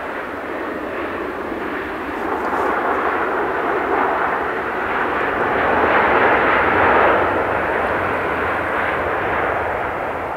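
Boeing 737-500's CFM56-3 jet engines roaring as the airliner rolls out after touchdown. The roar swells to its loudest about six to seven seconds in, then eases as the aircraft slows.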